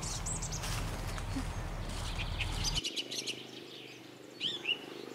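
Birds chirping over a low steady outdoor background, which cuts off about halfway through; short falling chirps follow near the end.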